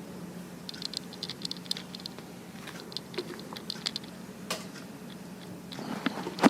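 Electric fan's motor humming steadily, with quick, irregular light clicks and ticks over it and a sharper click near the end.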